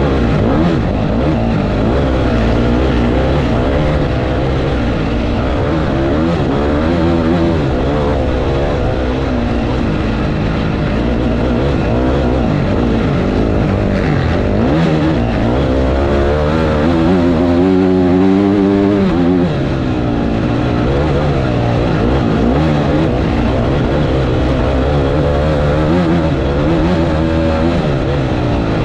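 Off-road motorcycle engine heard close up from a camera mounted on the bike, revving up and down as the rider works the throttle and gears. The revs climb steadily for a few seconds past the middle, then drop off sharply.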